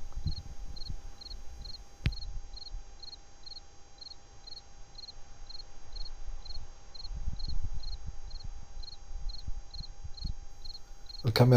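A cricket chirping steadily at night, about two short high chirps a second, over a faint steady whine. A single sharp click comes about two seconds in, with uneven low rumbling underneath.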